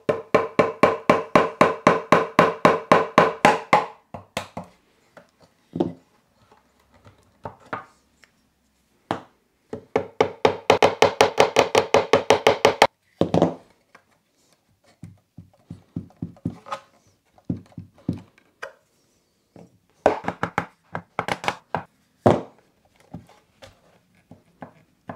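Wooden mallet tapping on the glued wooden corner blocks of an old chair frame to knock the glue joints loose. Two fast runs of rapid taps, one at the start and one about ten seconds in, with scattered single knocks between and a few more near the end.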